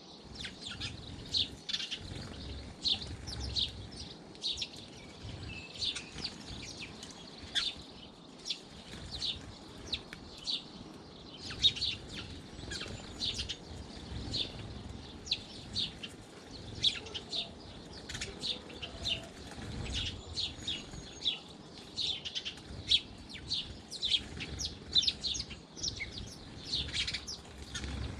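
A flock of small garden birds at a feeder chirping, with many short high chirps in quick succession all through.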